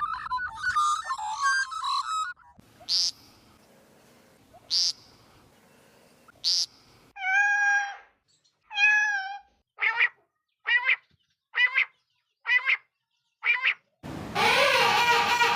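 A bird giving a varied run of calls: rapid chatter at first, then three sharp high notes about two seconds apart, two drawn-out wavering meow-like calls, and five short calls at about one a second. A louder, denser rush of sound sets in near the end.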